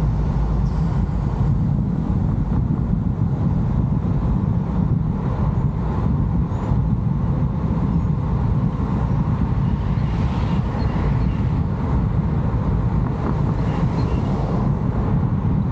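A moving vehicle's steady road and wind noise, with wind buffeting the 360° camera's microphone; the noise is low and even, with no changes.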